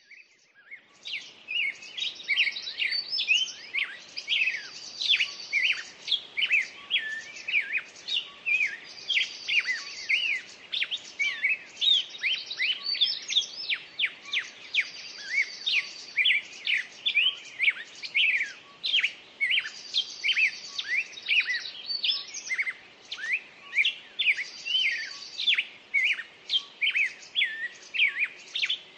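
Songbirds chirping and singing in a dense chorus of short rising and falling whistled notes, with a higher buzzy trill coming back about every five seconds.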